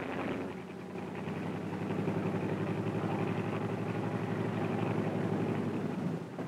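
A carrier propeller plane's radial engine idling on deck, a steady engine note with a fast, even pulse.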